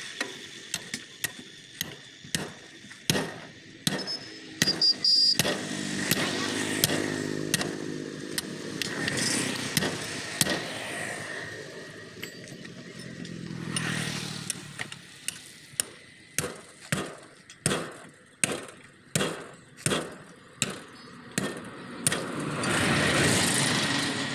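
Hammer blows striking around the rim of a tractor's punctured tyre: a few scattered strikes, then an even run of about two strikes a second in the second half. A vehicle engine passes in between the two runs of blows.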